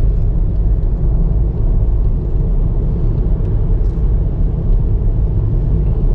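Steady low rumble of a car driving along the road: engine and tyre noise.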